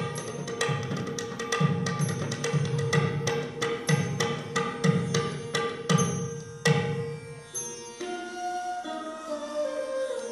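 Accompaniment music for a Manipuri classical dance: evenly paced low drum strokes and sharp clicks over a steady held tone, with the percussion stopping about seven seconds in and leaving a sustained melody line.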